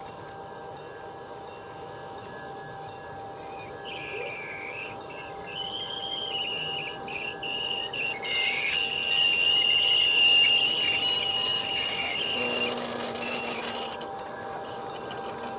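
G scale model tank cars rolling along garden-railway track, with a steady running hum. A high-pitched squeal starts about four seconds in, breaks off a few times, then holds steady and loudest for several seconds before stopping about three seconds before the end.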